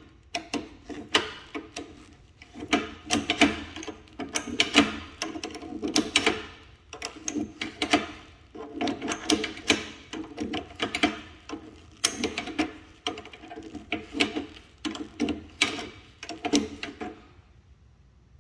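Sears Craftsman 1/2 HP chain-drive garage door opener motor running with an irregular clicking rattle from the drive, while the chain does not move. It stops near the end.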